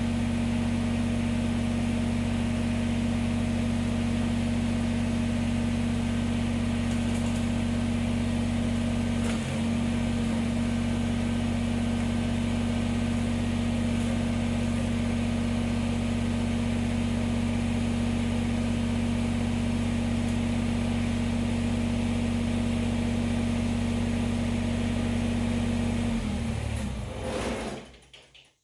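Kubota BX23S tractor's three-cylinder diesel engine idling steadily, then shut off near the end, running down to silence.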